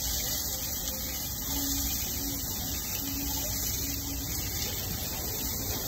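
Butter and food sizzling on a hot flat-top griddle: a steady frying hiss.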